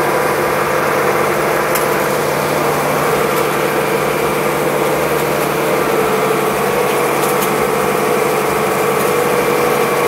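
Tractor engine running at a steady speed while driving, heard from inside the cab.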